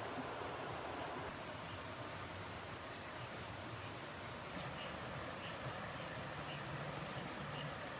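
Insects trilling: a steady high-pitched trill over an even hiss, which weakens after a click about halfway through. After that, fainter chirps repeat about twice a second.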